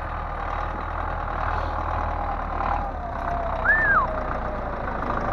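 Diesel engine of heavy forestry machinery idling steadily, with a steady whine over it and one short high squeal about two thirds of the way through.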